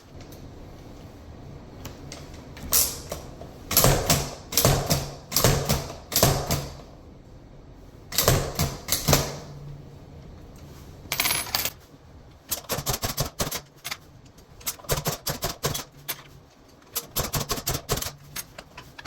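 Key-cutting machine cutting a key: the cutter grinds into the metal blank in a string of harsh bursts of about a second each over a low motor hum, followed by a long run of quick sharp metallic clicks.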